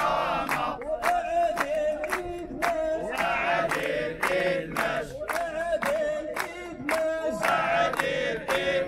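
A crowd of protesters chanting a slogan in unison to a sung tune. They keep time with steady, rhythmic hand claps.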